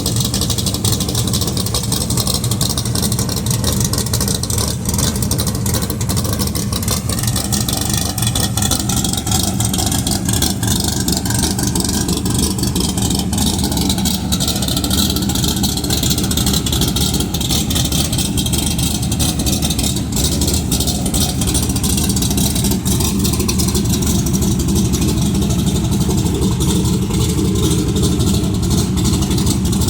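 Modern Gen 3 Hemi V8, built on a Hellcat block with Apache heads, lots of compression and a big camshaft, running steadily at or near idle. It sounds like an old-school V8, with a dense rapid pulsing from the exhaust.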